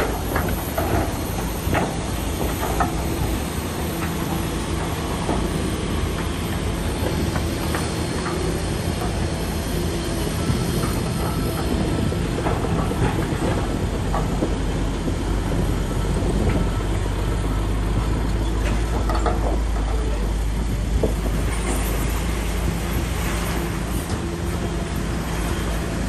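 Heavy earthmoving machinery at work: a diesel engine running steadily under load, with scattered clanks and knocks of steel and stone. The low engine note grows stronger about two-thirds of the way in.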